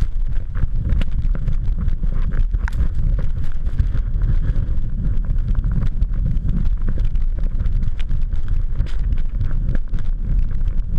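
Heavy wind rumbling on an action camera's microphone as the rider descends through powder snow, with scattered clicks and crackles of snow and gear throughout.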